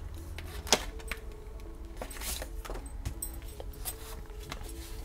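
Paper banknotes and thin plastic vellum cash envelopes rustling and crinkling as a wad of bills is pulled out of an envelope and handled, with small clicks throughout and one sharp click just under a second in.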